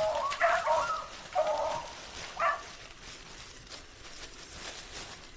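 Beagles yelping excitedly: a few short pitched calls in the first two and a half seconds, then quieter.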